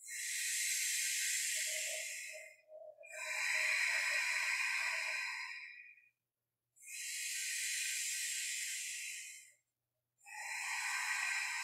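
Slow, deep breaths in and out through the mouth, close to the microphone: four long, airy breaths of about three seconds each, alternating inhale and exhale with short pauses between.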